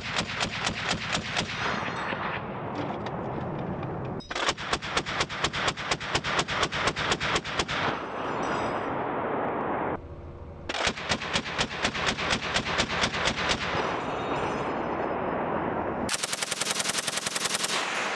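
M240 belt-fed 7.62 mm machine gun firing long, rapid bursts, three of them each trailing off into a rolling echo, and a fourth burst starting near the end.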